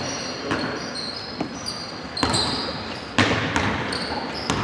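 Basketball bouncing on a hardwood gym floor as it is dribbled up the court, a few bounces about a second apart, with short high sneaker squeaks from players running, in a gym's echo.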